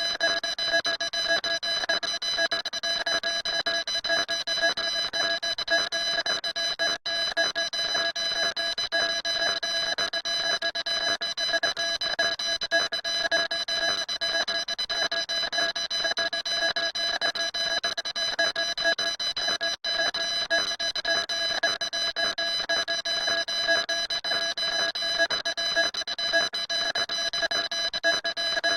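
A steady electronic tone made of several fixed pitches with a fast flutter, unchanging throughout and cutting out for a split second twice.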